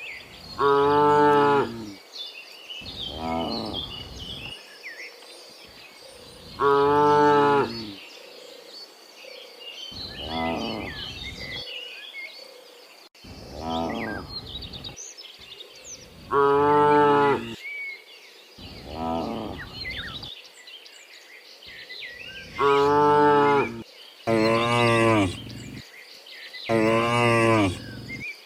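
Cattle mooing over and over: about ten drawn-out moos, each a second or so long, some loud and some quieter. Faint bird chirps come in between the moos.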